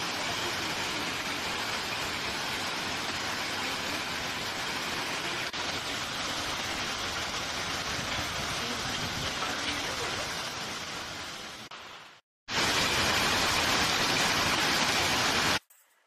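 Steady rain, an even hiss with no bird calls. About twelve seconds in it fades away and breaks off briefly. It then comes back louder and cuts off suddenly just before the end.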